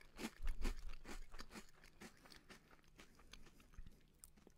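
A mouthful of chocolate puffed corn cereal in milk being chewed close to the microphone: a run of crunches, about four a second, loudest in the first second and a half and then softer.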